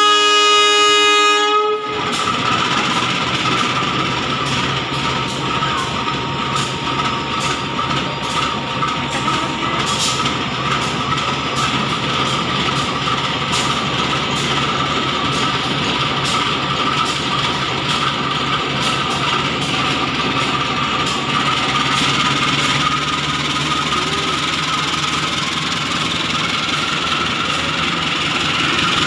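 A loud vehicle horn blast of about two seconds, rich in overtones, cutting off suddenly; then the steady running noise of a vehicle with a constant hum.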